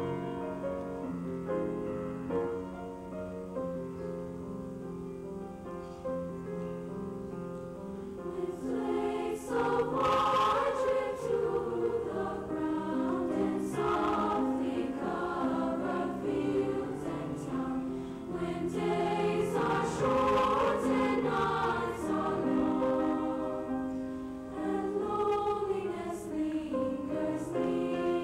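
A choir singing with piano accompaniment, softer at first and swelling louder about a third of the way in.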